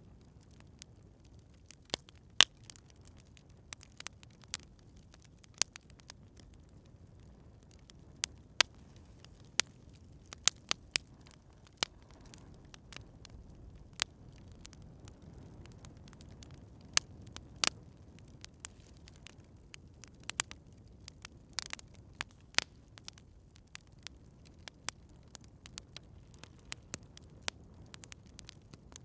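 Campfire crackling: irregular sharp pops and snaps over a low, steady rumble of burning wood, with a brief hiss about two-thirds of the way through.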